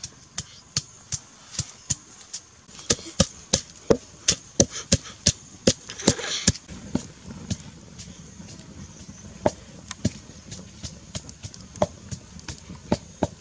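Pestle pounding chili peppers in a mortar: a run of sharp knocks, coming about three a second in the busiest stretch.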